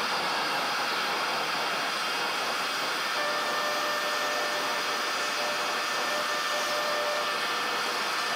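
Cessna 208 Caravan's PT6A turboprop engine and propeller heard from inside the cockpit at taxi: a steady rushing drone, with a few faint steady whine tones joining about three seconds in.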